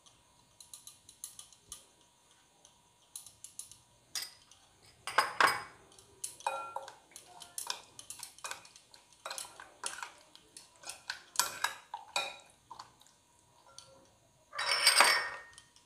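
A metal spoon clinking and scraping against a glass mixing bowl as chicken pieces are stirred in a thick marinade, a string of short, irregular clicks. There is a louder, longer clatter near the end.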